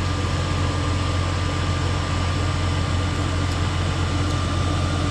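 Case IH 956 tractor's diesel engine idling steadily, a low even hum with a thin steady whine over it.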